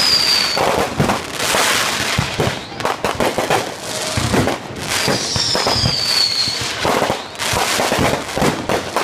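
Aerial fireworks going off: repeated bangs over dense crackling. About five seconds in, a high whistle falls in pitch for a second or so.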